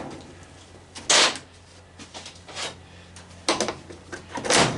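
Handling noise from a washing machine being taken apart: several short scrapes and knocks, the loudest about a second in, over a steady low hum.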